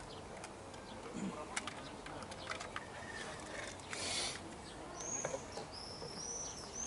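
Scattered light clicks and taps of hand work on a car door panel, with a short scraping rustle about four seconds in. From about five seconds in, a bird sings a run of repeated high, arched chirps.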